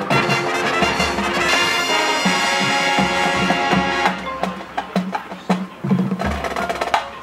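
High school marching band playing. Brass and winds hold a loud, full chord for about the first four seconds, then drop away, leaving quieter percussion strikes.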